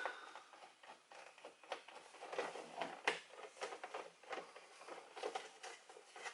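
Irregular clicking and rattling of hard plastic car interior trim and hand tools as a center console piece is worked loose.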